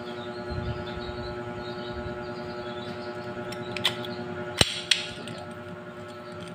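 Motorcycle clutch hub being seated into a clutch basket stacked with new friction and steel plates. It gives three sharp metal clicks a little past the middle, over a steady background hum.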